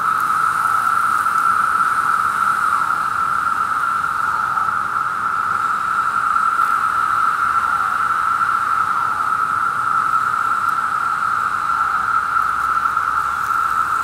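Chorus of Brood II periodical cicadas (Magicicada) massed in the vegetation: a steady, unbroken, high droning buzz, with single calls here and there sliding down in pitch at their ends.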